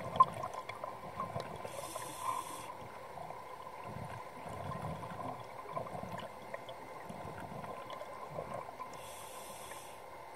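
Scuba diver's regulator breathing underwater: two short hissing inhalations about seven seconds apart, with the low, irregular bubbling of exhaled air between them, over a faint steady tone.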